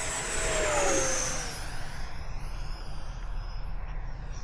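Electric ducted fan (90 mm EDF) of an RC sport jet at full throttle flying past: a loud whine that peaks about a second in and drops in pitch as the jet goes by, then fades to a fainter high tone.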